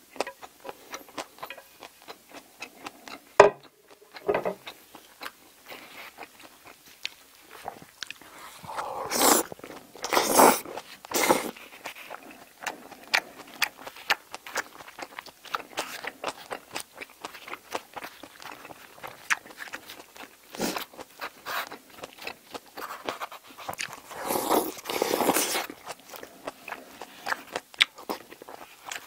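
Close-miked eating: chewing and mouth clicks with small utensil taps. About three and a half seconds in there is one sharp knock as a plate is set down on the wooden table. Later come a few longer, louder slurps, three of them together around ten seconds and a pair about three quarters of the way through.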